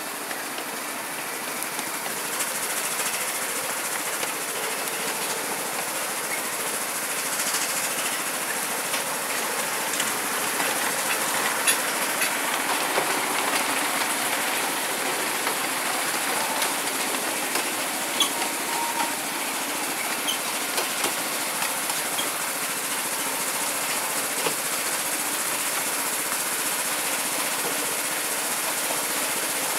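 Miniature railway train running along the track: a steady rattle of wheels on the rails, with scattered sharp clicks.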